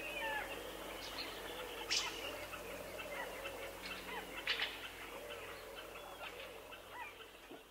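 Several small birds singing and calling at once: many short whistles and chirps, with a few sharper, louder calls about two and four and a half seconds in. A faint steady low hum sits underneath, and the sound fades toward the end.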